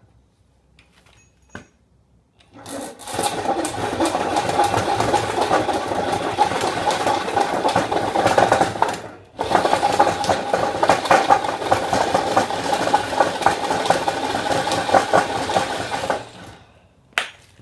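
Corded drill driving a log tenon cutter into the end of a peeled log: a steady motor whine over the rough chatter of the blade shaving wood as the tenon is cut. It starts a couple of seconds in, stops briefly about halfway, then runs again until shortly before the end.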